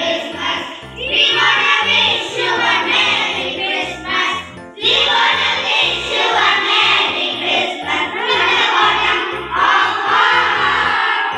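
A group of children singing together as a choir, in phrases with a short break about four and a half seconds in, over accompanying music with a steady low beat.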